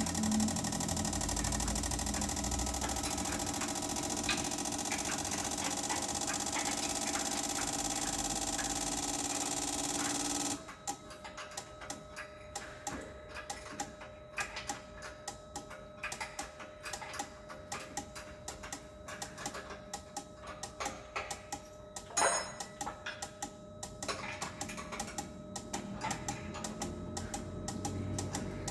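Fuel injectors firing on an injector test bench during a test cycle. A dense, rapid buzz stops suddenly about ten seconds in and gives way to quieter, fast, irregular ticking over a faint steady hum.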